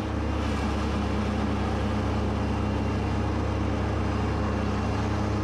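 Kubota B2601 compact tractor's three-cylinder diesel engine running steadily while mowing, with no change in pitch or level.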